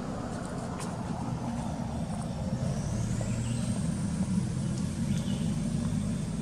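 Steady low hum of a running engine. A faint high whistle glides upward about three seconds in.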